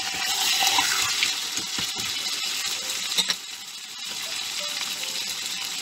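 Beef shank slices sizzling in hot olive oil in a frying pan as a third raw slice is laid in. The hiss is loudest for the first three seconds, then drops lower after a light click.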